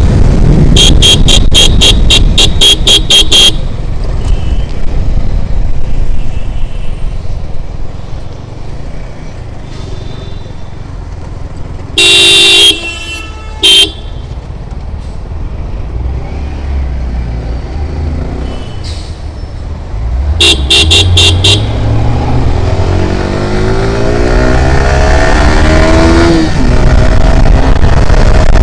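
Kawasaki ZX-10R's inline-four engine on its stock exhaust running on the move under wind rumble, with vehicle horns tooting in rapid series near the start, one long blast about midway and another quick series about two-thirds through. Near the end the engine revs up in a rising pitch, then drops at a gear change.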